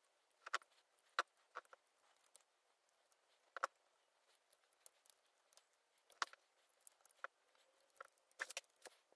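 Faint, scattered small clicks and taps of a Microsoft Surface Pro 4 motherboard being fitted and aligned by hand in the tablet's metal chassis, about a dozen irregular ticks with a few sharper ones.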